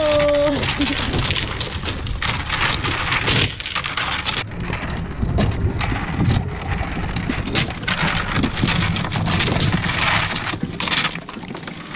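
Small baitfish flapping and pattering against a boat's fiberglass deck and a plastic basket as a cast net is emptied, along with the rattle of the net's weighted lead line. It is a dense, irregular run of quick taps and clicks.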